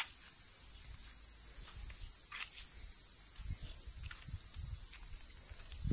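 Steady high-pitched chorus of insects chirring, with a few soft low thumps about halfway through.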